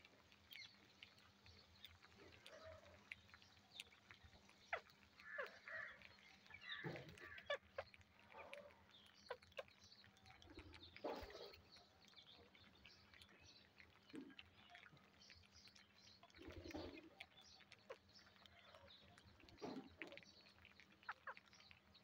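Faint sounds of a flock of rose-ringed parakeets feeding on grain on concrete: scattered small taps and clicks of beaks pecking, with occasional short chirps and soft calls.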